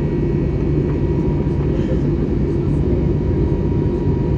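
Steady cabin noise of an Airbus A321neo in flight: the deep, even roar of its Pratt & Whitney PW1100G geared turbofans and the airflow over the fuselage, with a faint steady whine above it.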